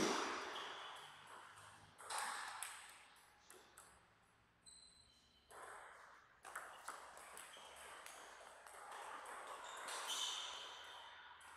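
Table tennis ball being played: a run of quick, sharp clicks as the ball strikes bats and table in a short rally, about five to seven seconds in.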